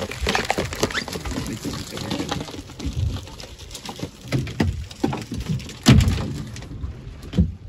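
Water splashing and dripping from crab traps and line being hauled aboard a small fishing boat, with scattered knocks and rattles of the wire-and-mesh traps against the boat; one sharper knock about six seconds in.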